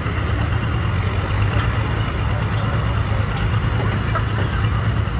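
Engine of a pulling truck or tractor running steadily, a low hum with a constant high whine over it.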